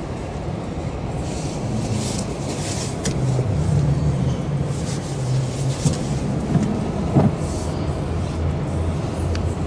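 Steady low engine rumble of road traffic, with a few faint knocks, one a little sharper about seven seconds in.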